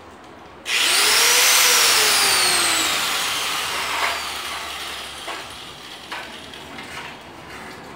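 Electric angle grinder switched on about a second in, whining up to speed with a harsh rush of noise, then its pitch sinks slowly over the next few seconds as it is worked against the plastic headlight frame. A few light knocks follow near the end.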